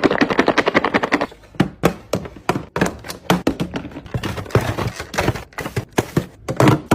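Items being handled and set down on refrigerator shelves: a fast rattle of clicks, then a series of knocks, taps and light clinks.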